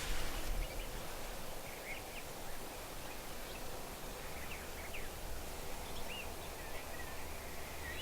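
Small birds chirping faintly, scattered short whistled notes, over a steady background of open-field outdoor noise.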